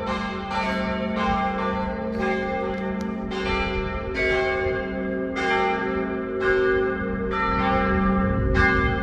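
Several church bells pealing together, a new stroke about every two-thirds of a second over the long, overlapping hum of the bells still ringing.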